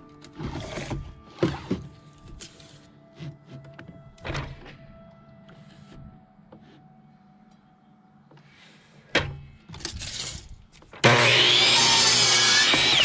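A few scattered knocks as the board and tape measure are set in place, then about eleven seconds in a DeWalt compound miter saw starts up loud and its blade cuts through an OSB board.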